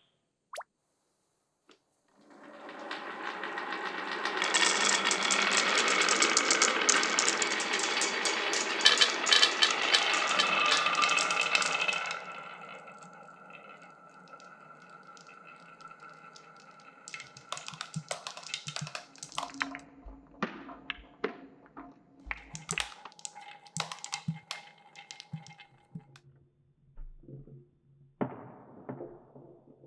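Glass marbles rolling and clattering down a wooden marble-run course: a dense, loud rattle of many marbles from about two seconds in, fading after about twelve seconds into scattered sharp clicks and clacks as single marbles hit track pieces, with another short run of rattling near the end.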